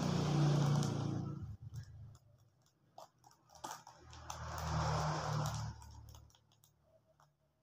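Spiny durian husk being pried and torn apart by hand along its seams: a noisy splitting and tearing of the fibrous rind in two long pulls, one at the start and one about four seconds in, with small clicks between.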